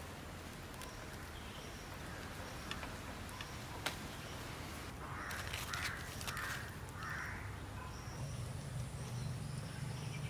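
A crow cawing three times, harsh calls about five to seven and a half seconds in, over outdoor ambience with faint, short high chirps repeating throughout and a single sharp click about four seconds in.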